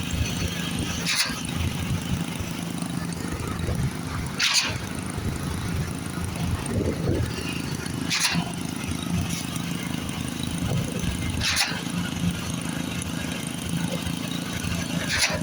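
Truck-mounted concrete pump running steadily, with a short sharp burst of noise about every three and a half seconds, five in all, as the pump's pistons change stroke.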